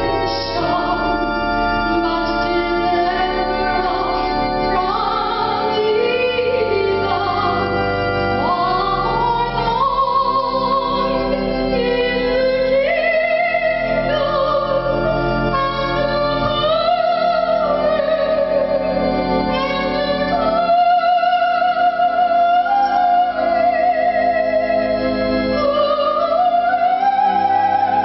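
A solo voice with vibrato singing a slow melody over held keyboard accompaniment.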